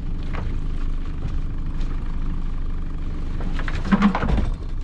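Small fishing boat's engine running steadily with a low hum, with a brief knock and rattle about four seconds in.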